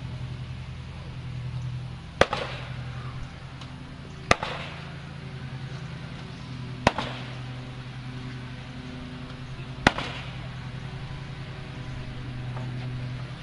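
Nail gun firing four times, a few seconds apart, each shot a sharp crack. A steady engine hum runs underneath.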